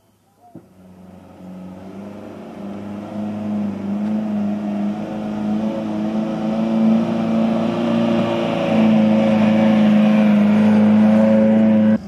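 An off-road 4x4's engine running under load, with a short knock just before it comes in, then growing steadily louder over about ten seconds.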